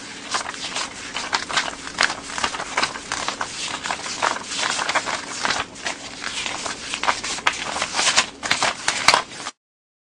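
A stack of US dollar bills being counted by hand, the notes flicked and thumbed one after another in a fast, irregular run of papery snaps and rustling. It cuts off suddenly near the end.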